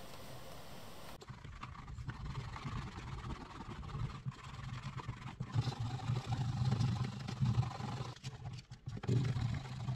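Wooden edge slicker rubbed back and forth along the edge of a vegetable-tanned leather pouch, burnishing it: a low friction rubbing that swells and fades with each stroke, with a few short pauses.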